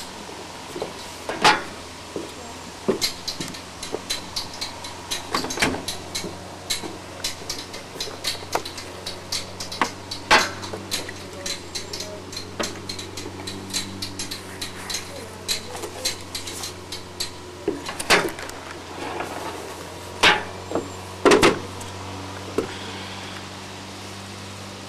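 Glasses and bowls being set down from a wooden serving tray onto a glass-topped table: many irregular clicks and knocks, a handful of them louder, over a steady low hum.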